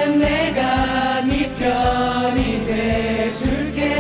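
A pop ballad sung live: male voices singing long held notes into handheld microphones over a backing track with a steady drum beat.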